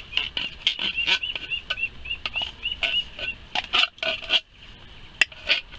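Cat food being knocked and smashed out of a metal tin into a bait bucket: a series of sharp knocks, with a run of about ten quick high squeaks in the first half.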